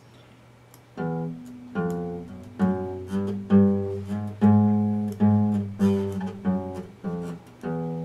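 Epiphone acoustic guitar: after a quiet first second, chords are picked in a steady rhythm, each one ringing out and dying away before the next.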